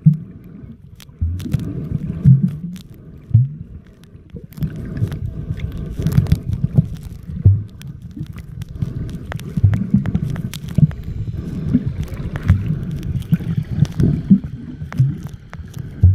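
Underwater sound picked up by a camera held below the sea surface: muffled, irregular sloshing and thumps of moving water, with scattered sharp clicks and crackles.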